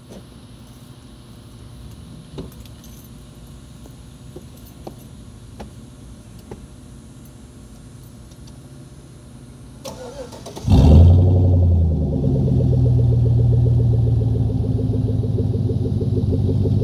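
GMC Yukon V8 with its muffler cut off is started: a few faint clicks, then about ten seconds in a brief crank, and the engine catches with a loud flare. It settles into a steady, deep idle through the open muffler-delete exhaust: stock catalytic converters and a 3-inch turndown pipe, no muffler.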